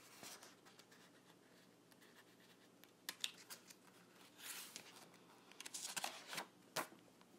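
Faint rustling and scratching of paper with a few sharp clicks, mostly in the second half: a picture book's pages being handled and turned.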